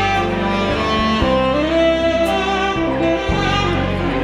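Saxophone melody played live over a recorded backing track, with a bass line that changes note about once a second beneath it.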